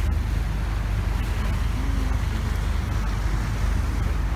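Inflatable motorboat running under way: a steady low engine rumble with wind buffeting the microphone and water rushing past the hull.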